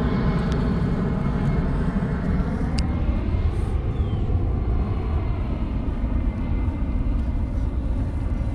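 A steady engine drone with many overtones, its pitch sagging slightly about three seconds in, over a low rumble; a single sharp click near three seconds.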